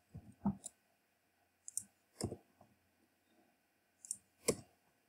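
About half a dozen sparse, separate clicks of a computer mouse and keyboard at irregular spacing while code is being edited, with near silence between them.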